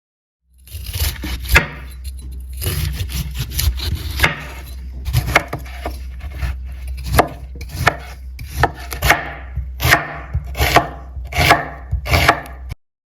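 Kitchen knife chopping food on a cutting board: irregular sharp strikes about once a second over a low steady hum, stopping abruptly near the end.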